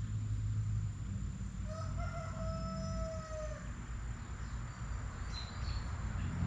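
A rooster crowing once, a single long call of about two seconds starting near the two-second mark, over a low steady rumble, with a short high bird chirp later.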